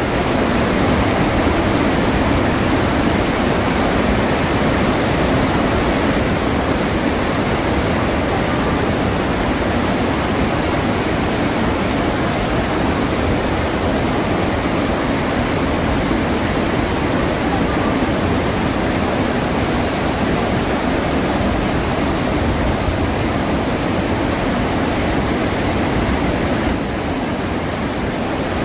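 Iguazu Falls, a large waterfall: a loud, steady rush of falling water that goes on without a break. It dips slightly and turns duller near the end.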